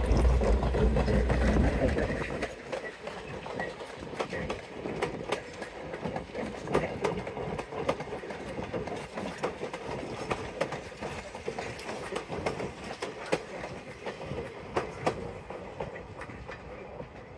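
Railway passenger coaches rolling past, the wheels clicking and clacking over the rail joints over a steady rumble. Loudest in the first two seconds, it fades as the last car draws away.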